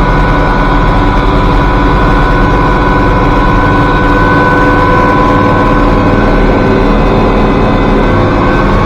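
Loud, steady machinery drone: a low engine hum under a constant hiss, with a couple of steady whining tones that do not change.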